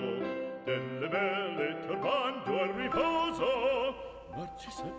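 Background opera music: a singer with wide vibrato over an orchestral accompaniment, moving through several held notes.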